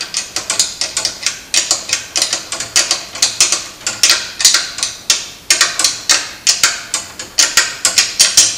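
Hand wrench tightening an engine-mount nut: a quick run of sharp metallic clicks and clinks, several a second in uneven bursts, as the wrench is swung and set back on the nut stroke after stroke.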